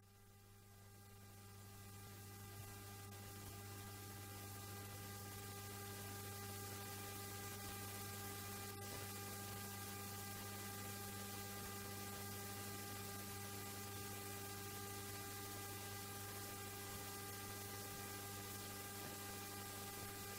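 Faint steady electrical mains hum with light hiss, fading in after a second or two of silence and then holding level.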